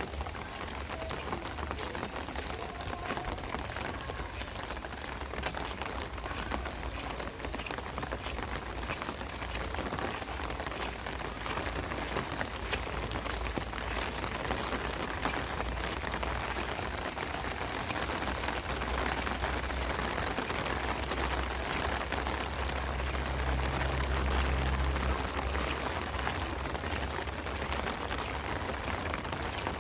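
Heavy rain falling steadily, a dense even hiss of drops on surfaces. A low rumble swells underneath it for a few seconds near the end.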